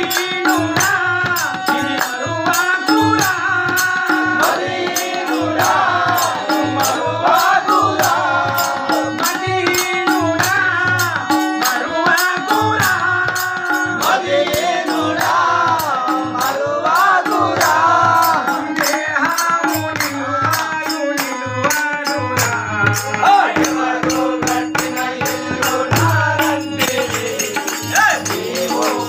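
A man singing a Telugu devotional bhajan with a gliding melody, accompanied by tabla and a rattling hand percussion that keeps a fast, even beat.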